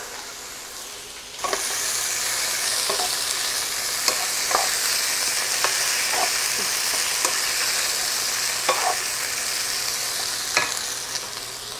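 Sliced bell peppers sizzling in hot oil and steak drippings in a frying pan while being stirred with a spatula. The sizzle jumps louder about a second and a half in and stays steady, with scattered light clicks of the spatula against the pan.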